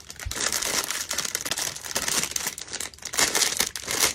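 Plastic packaging crinkling and rustling as it is handled, an irregular stream of crackles with no let-up, loudest a little after three seconds in.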